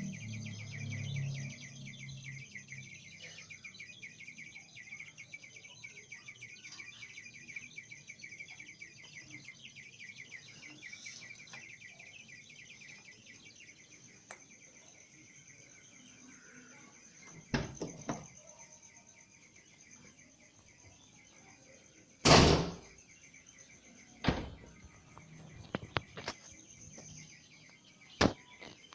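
Hot, switched-off engine of a Nissan Grand Livina giving a steady high chirring, and from about 17 seconds in a handful of sharp loud clicks, the loudest about 22 seconds in. The owner traces the odd noise to a worn exhaust manifold gasket.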